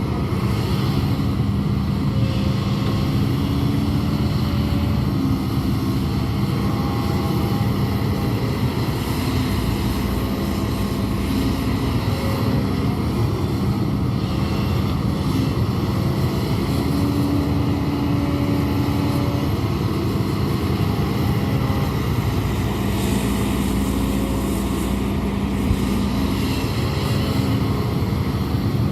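Hidromek 200W wheeled excavator's diesel engine running steadily under work, with a low hum that swells and fades every few seconds as the machine digs and levels.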